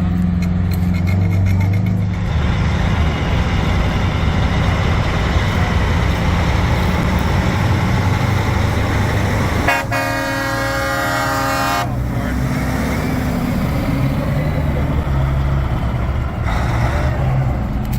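Heavy diesel truck engine running loud as the truck pulls away, with a single air horn blast of about two seconds some ten seconds in.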